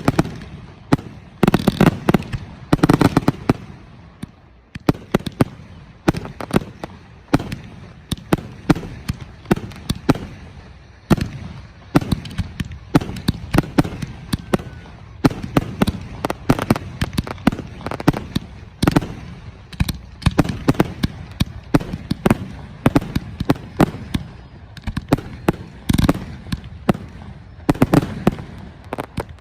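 Fireworks display: aerial shells bursting in a steady, irregular barrage of sharp bangs, often several in quick succession, with crackle after some bursts.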